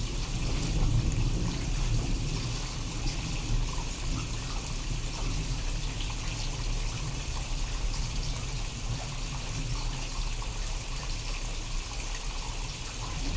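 Steady rain falling in a thunderstorm: an even hiss of rainfall over a low rumble, with the rumble swelling right at the end.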